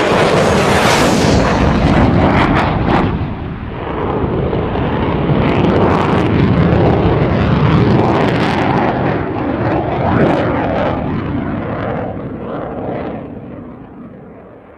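Rushing, rumbling noise from an HLK-31 foam RC plane as heard from a camera on its airframe: it lands and rolls along a coarse asphalt strip, and the noise fades away near the end as the plane slows.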